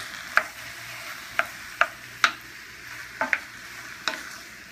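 Diced chicken and sausage sizzling in a nonstick skillet, stirred with a wooden spatula that knocks and scrapes against the pan about six times at irregular intervals.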